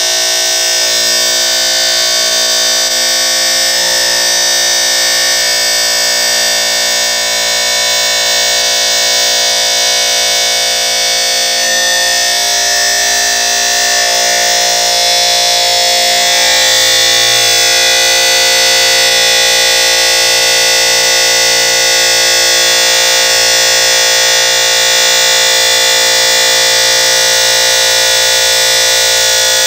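Abrasive cut-off disc spinning at high speed and grinding through the metal gates of a tree of femoral implant castings, cutting them free. A loud, steady, high-pitched whine made of many tones, shifting slightly in pitch about halfway through.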